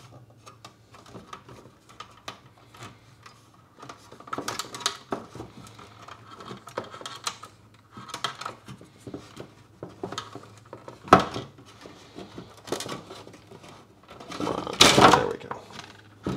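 Wire nuts being twisted off and wires handled inside a plastic aquarium light fixture housing: scattered small clicks, taps and rustles, with a sharp click about two-thirds of the way through and a louder spell of rattling near the end.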